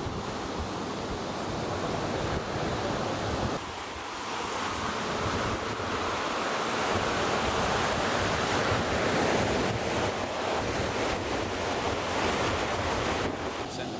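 Ocean surf washing onto a sandy beach, mixed with wind on the microphone: a steady rushing that dips briefly about four seconds in and grows louder through the middle.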